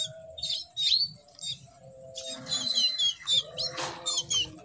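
Young canaries chirping over and over in short, high, down-sliding calls. These are hungry begging calls, which the breeder takes as a warning sign of a worm infestation. A brief noisy burst comes near the end.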